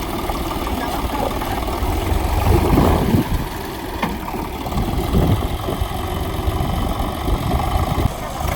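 A heavy diesel engine of a backhoe or farm tractor running steadily at idle, growing louder twice, around three and five seconds in.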